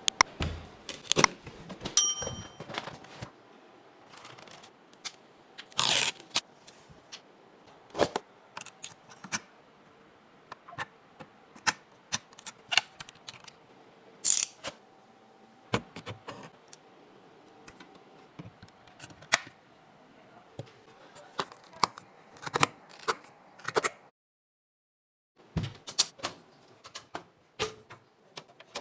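Computer parts being handled and fitted during a PC build: irregular clicks, taps and light scrapes of plastic and metal. There is a short ringing ping about two seconds in, and a brief silence a little over three-quarters through.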